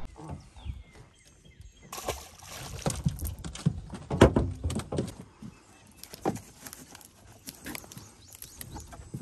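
Irregular knocks, clatter and light splashing as a fish is brought into a boat and handled. The loudest thump comes about four seconds in.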